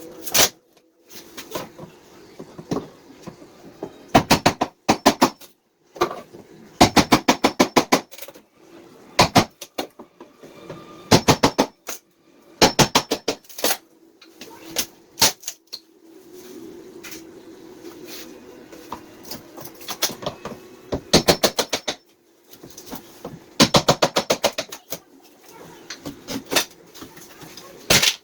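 Repeated bursts of sharp knocks from carpentry work on a door frame, each burst a quick run of about ten strikes, coming every few seconds over a faint steady hum.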